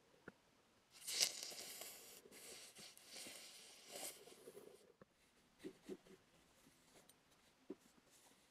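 Crackling sizzle of electrochemical etching as an electrolyte-soaked cotton-swab electrode is pressed to a steel cleaver blade, lasting about four seconds. After that come a few soft taps and the rustle of a paper towel being handled.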